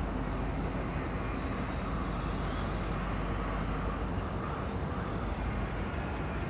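Freight train passing: a diesel locomotive runs past, then boxcars and covered hoppers roll by on the rails with a steady rumble.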